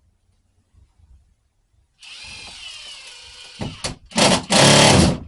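Power drill driving sheetrock screws into a plywood sheet: a steady motor whine for about a second and a half, then three short, much louder bursts near the end.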